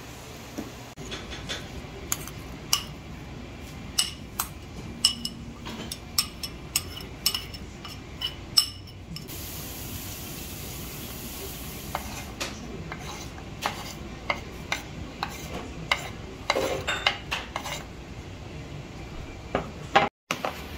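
Kitchen utensils clinking and tapping against a plastic mixing bowl and a wooden cutting board as kimchi seasoning paste and scallions are added to napa cabbage: a long run of sharp, irregular taps, at times several a second.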